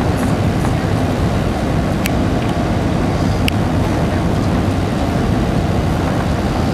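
Steady roar inside the cabin of an Airbus A320-232 on approach, from its IAE V2500 engines and the air rushing past the fuselage, with two brief sharp clicks about two and three and a half seconds in.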